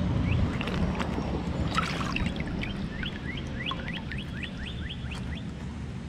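Shallow river water sloshing and splashing as a gloved hand rummages along the riverbed, with a rapid scatter of little drip plinks during the first five seconds.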